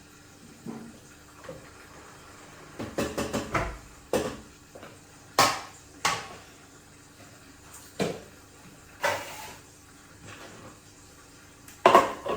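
Kitchen utensils and pots clattering, in scattered knocks and clanks: a cluster about three seconds in, single knocks after it, a short scrape, and a louder pair of knocks near the end.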